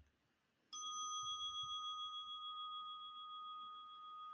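A bell struck once, about a second in, then ringing on with several clear tones that slowly fade and gently waver; it marks the start of the meditation.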